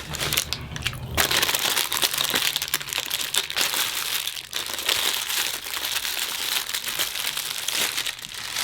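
Crinkly packaging being handled and crumpled by hand: a continuous, rapid crackling rustle.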